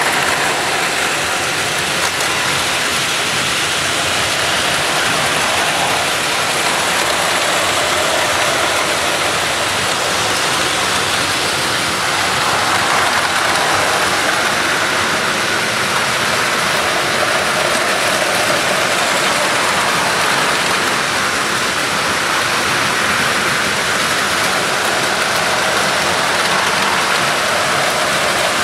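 About ten Plarail battery-powered toy trains running at once on plastic track: a dense, steady clatter of small motors and plastic wheels.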